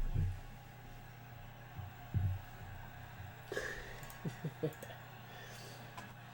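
Two dull low thumps, then a handful of short light clicks and taps, over a steady low electrical hum.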